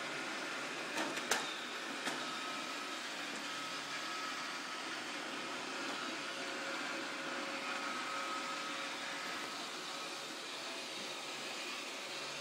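Roomba robot vacuum running with a steady whirring hum. A few sharp knocks come about a second in and again at two seconds, the middle one the loudest.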